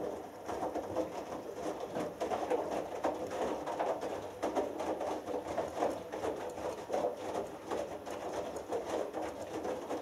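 Hoover Dynamic Next front-loading washing machine drum turning during a wash cycle, the laundry tumbling and dropping with many soft thuds. It starts suddenly right at the beginning as the drum begins to rotate.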